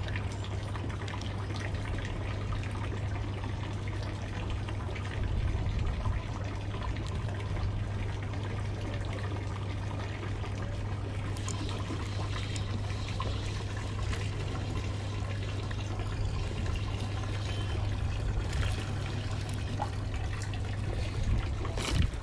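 Harbour water trickling and sloshing against the moored boats and quay, over a steady low hum. A sharp knock sounds near the end.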